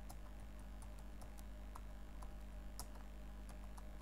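Computer keyboard being typed on: a loose, uneven series of faint key clicks over a low steady hum.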